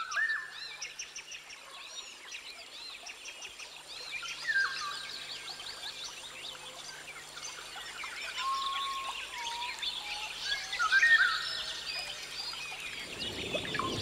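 A chorus of many birds calling at once: overlapping chirps, gliding whistles and trills, with one loud call a little before the end. Near the end a louder, low rushing noise comes in.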